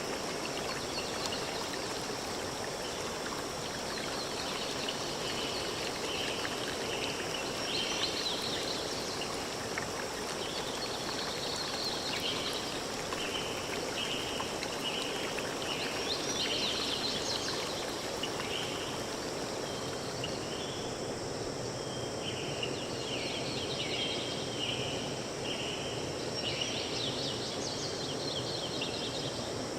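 Natural forest ambience: a steady hiss of running water under repeated short, high chirps from small animals, thicker in the second half.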